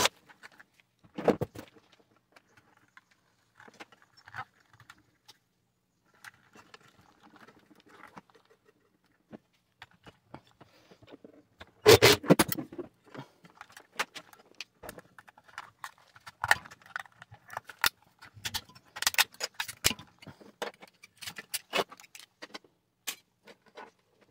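Scattered clicks, clinks and rattles of small metal parts and tools being handled while the wiring and terminal cover are worked off a refrigerator compressor. A louder clatter comes about halfway through, and quick clicks follow in the second half.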